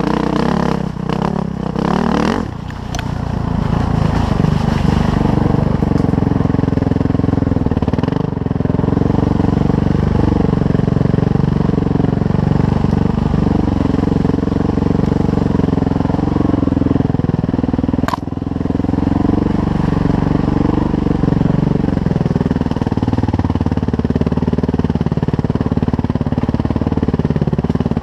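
Suzuki RM-Z450 four-stroke single-cylinder dirt bike engine running as the bike is ridden, its pitch rising and falling with the throttle. One sharp click comes about eighteen seconds in.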